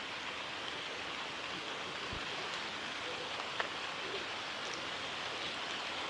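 Steady rushing of a mountain stream's flowing water, with a faint click about three and a half seconds in.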